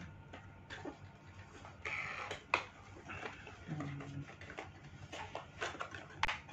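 GoPro suction cup mount parts and their plastic packaging being handled and unpacked: scattered light clicks and rustles, with a brief hum from a voice about four seconds in.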